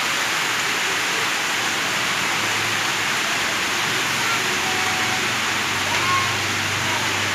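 Sausages frying in a pan, a steady sizzle.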